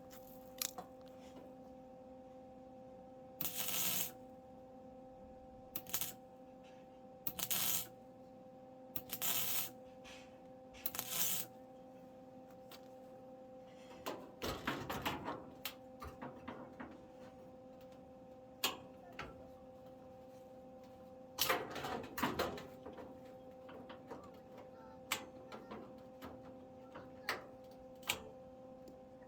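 A MIG welder laying short tack welds on sheet-metal body panels: about five separate crackling bursts, each under a second. Metal parts clink and clatter in between, over a steady electrical hum.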